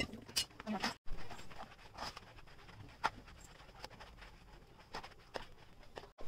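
Flat metal spatula stirring and pressing thick rice-flour batter cooking in a metal pot: soft squelching of the batter with irregular scrapes and taps of the spatula on the pot, as the lumps that form on heating are worked smooth.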